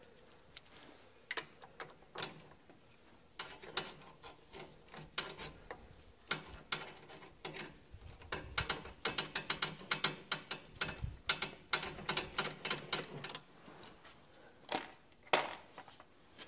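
Hand socket ratchet clicking as a bolt on the snowblower's carburetor is run in, in quick runs of clicks through the middle of the stretch. Scattered single clicks and clinks of tools being handled come before and after, with two sharper clicks near the end.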